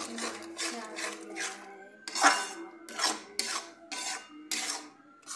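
A metal spatula scraping and stirring a thick onion-garlic masala paste around a metal kadhai while it is being fried down (bhuna). It makes a rasping scrape about twice a second, the loudest about two seconds in.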